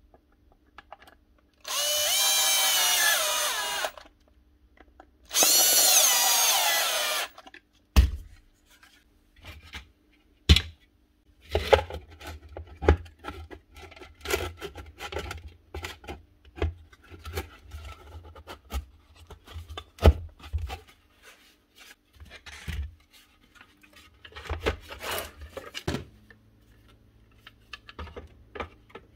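Cordless drill driving screws into a vacuum's plastic motor housing, in two runs of about two seconds each. After that come many short clicks and knocks of plastic parts being handled and snapped together as the vacuum is reassembled.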